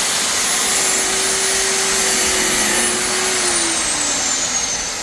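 A loud electric motor-driven machine runs with a steady hissing noise and a whine. About three seconds in, its pitch starts falling, as if the motor is slowing down.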